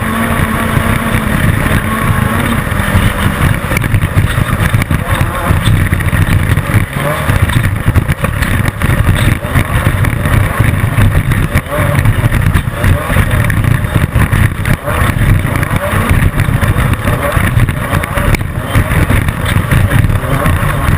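Class 10 off-road race car running hard: a loud, continuous engine note mixed with constant jolts and rattles, the sound of the car pounding over rough desert ground.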